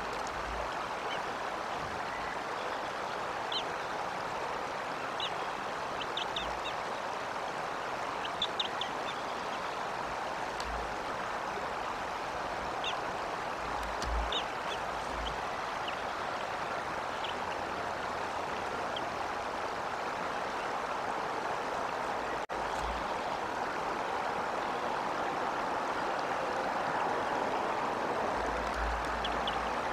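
Steady wind rushing over an outdoor nest-cam microphone, with occasional low bumps of wind buffeting. Short, high bird chirps come and go, mostly in the first half and again near the end.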